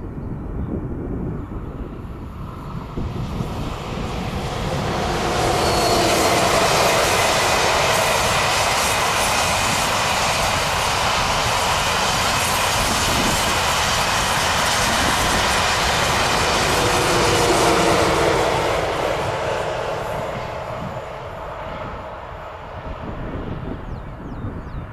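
ICE high-speed electric train passing at speed: a rushing noise of wheels on rail and air that swells over a couple of seconds, holds steady for about twelve seconds, then fades away.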